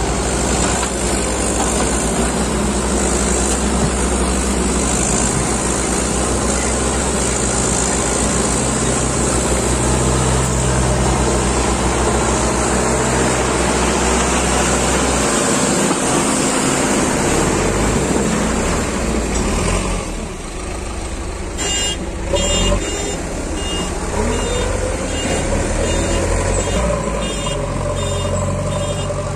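Mahindra 585 DI tractor's diesel engine running steadily under load as it hauls a fully loaded soil trolley. In the last third a backhoe loader's engine takes over, with a repeated high beeping and an engine note that rises near the end.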